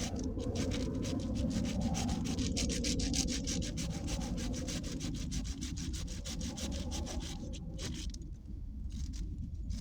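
Folding hand saw cutting oak in quick, even back-and-forth strokes, the sharp teeth rasping through the wood; the sawing stops about 8 seconds in.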